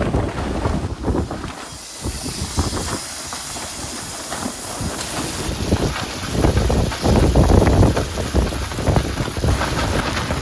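Strong gusty wind buffeting the microphone, with a steady high hiss; the gusts swell louder past the middle.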